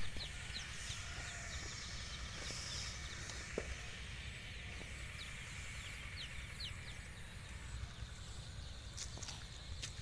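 Open-air field ambience: a low wind rumble on the microphone, with many short, high, falling bird chirps scattered through it. A few faint clicks come near the end.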